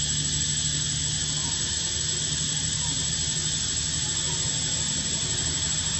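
Steady droning hiss with a low hum beneath it and a few faint short chirps.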